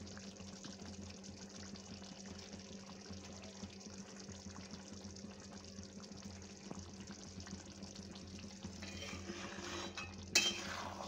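Thick curry gravy simmering in a pan, bubbling and popping softly and steadily over a low steady hum. About ten seconds in, a spatula stirs through the curry with a louder scrape against the pan.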